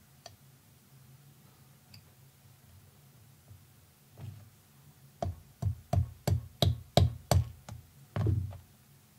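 A plastic-faced mallet tapping a steel pin punch to drive the extractor pin out of a SIG Sauer P230 pistol slide: a run of about nine quick light taps, about three a second, then a duller thump near the end.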